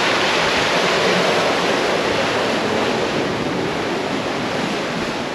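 Rushing, churning water of a Leopard 45 sailing catamaran's wake foaming behind the stern, mixed with wind; a steady rush that eases off a little toward the end.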